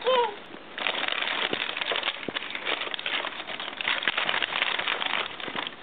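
Paper crinkling and rustling steadily as it is handled, after a brief voice sound at the very start.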